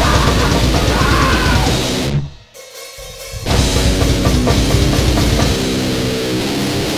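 Grindcore noise band playing loud and fast, with pounding drums, cymbals and distorted guitar. The music breaks off abruptly about two seconds in, and after about a second the distorted guitar comes back in with the drums.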